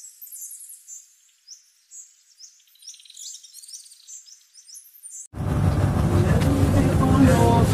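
Birds chirping, a quick run of short high chirps and little glides. About five seconds in, loud music starts abruptly.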